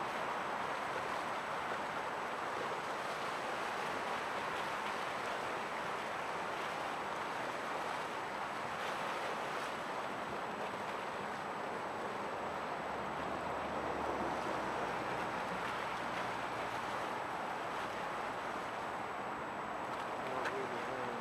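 Steady outdoor wash of wind and water noise, with no distinct events.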